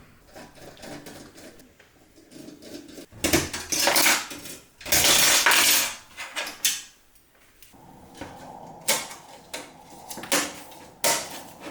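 PC components being handled during assembly: clatter and rustling, with several sharp clicks in the second half.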